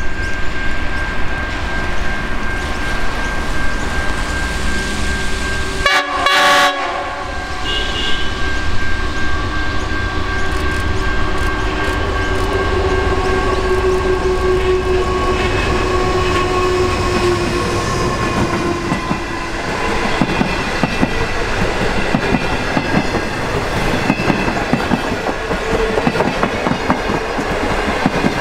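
NR class diesel-electric locomotive approaching and passing with a passenger train, its engine running steadily and a short horn blast about six seconds in. In the last third the stainless steel carriages rattle past with the clickety-clack of wheels over rail joints.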